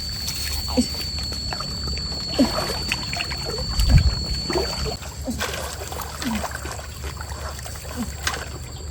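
Mountain stream water running and gurgling, with scattered short bubbling plops, and a steady high-pitched tone that stops about five seconds in.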